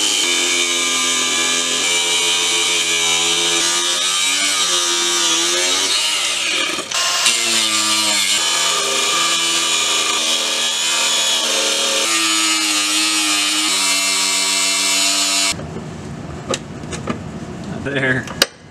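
Milwaukee cordless angle grinder with a cut-off wheel cutting through the steel driveshaft centre support carrier, its whine dipping in pitch a few times as the wheel bites. It stops about 15 seconds in, leaving a few light metal clicks.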